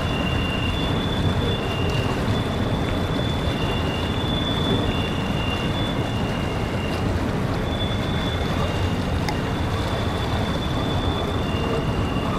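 Canadian Pacific double-stack container freight train rolling across a steel trestle bridge: a steady low rumble of the cars, with high-pitched wheel squeal coming and going.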